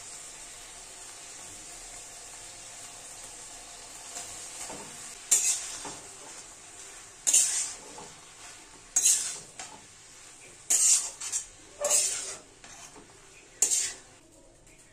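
Food sizzling in hot oil in an aluminium kadai, then a metal spatula stirring a banana flower stir-fry, scraping the pan six times, about every one and a half to two seconds.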